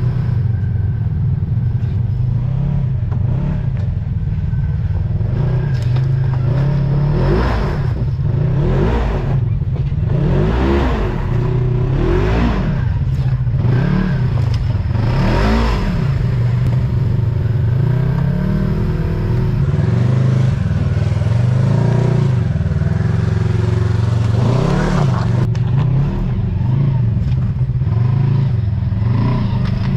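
Polaris RZR side-by-side engine running on the trail, revving up and easing off several times in quick rises and falls of pitch, with a busy stretch of revs in the middle and another surge near the end.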